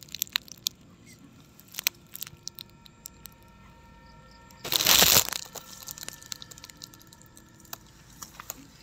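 Rustling and crackling of nylon tent fabric and sleeping bag as a person shifts about inside a small tent, with scattered small crackles and one louder rustle about five seconds in.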